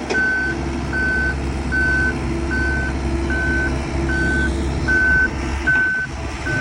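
A 75G mini excavator's travel alarm beeping evenly, about eight beeps, over the steady running of its diesel engine. The alarm is the sign that the machine is tracking, here through deep mud.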